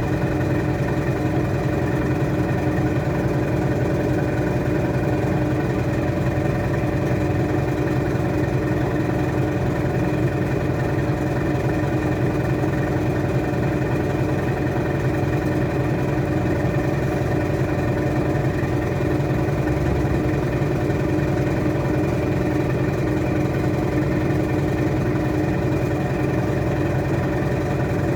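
Washing machine spinning, drum and motor running at a steady speed with an even hum that holds the same pitch throughout.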